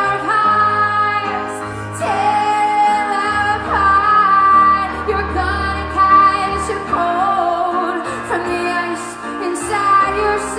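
A woman singing a pop ballad live into a microphone, holding long notes that waver in pitch, over sustained instrumental accompaniment.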